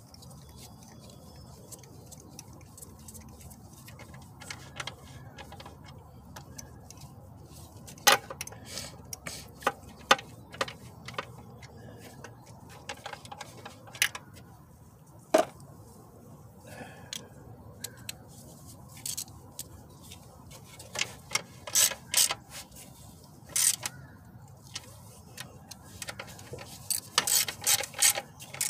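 Hand tools clinking and knocking on metal parts during work on a car engine: scattered sharp clicks and clinks, with quick runs of them near the middle and near the end, over a low steady background.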